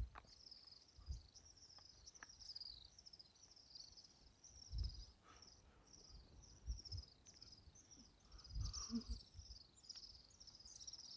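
Faint insect chirping outdoors: a steady run of short, high chirps, about two a second, with a few soft low thumps from wind or handling on the microphone.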